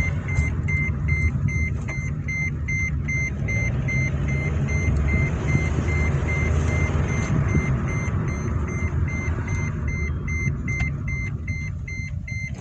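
2012 Scion xD's seat belt warning chime beeping over and over at a steady quick rate, over the steady low rumble of the car driving, heard inside the cabin.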